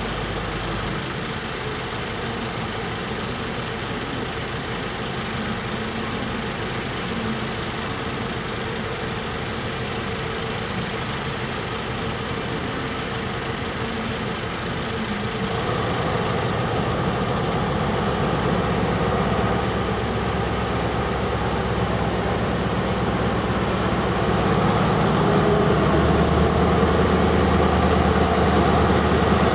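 Class 43 HST power car's diesel engine idling steadily, growing louder about halfway through and again near the end.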